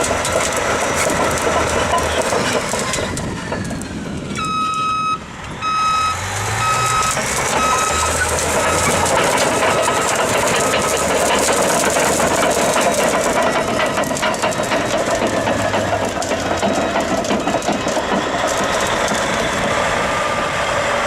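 Heavy machine's diesel engine running, with a reversing alarm beeping about three times every two seconds from about four seconds in, fading out after several seconds.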